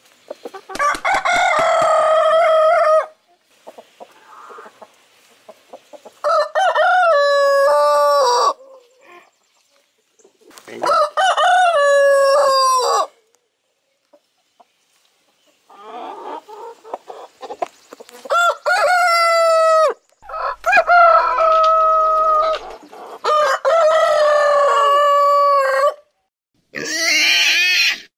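A rooster crowing over and over: about six long crows a few seconds apart. Higher, thinner calls come in near the end.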